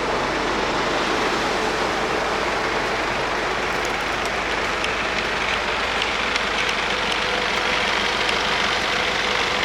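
Mercedes Sprinter refrigerated van running: a steady, even mechanical noise with a faint hum, unchanging throughout.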